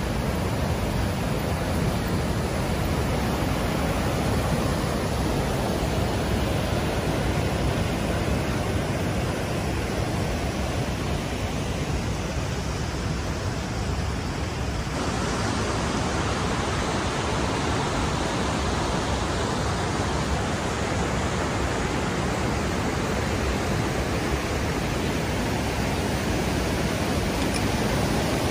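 River water rushing steadily down a cascade over granite rocks, a continuous rush that gets brighter and hissier about halfway through.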